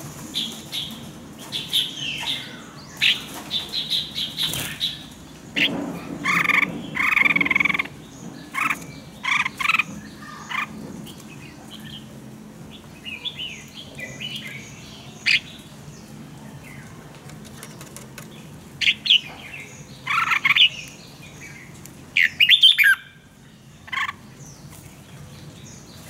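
Red-whiskered bulbul song: clusters of short, clear whistled phrases with pauses between them.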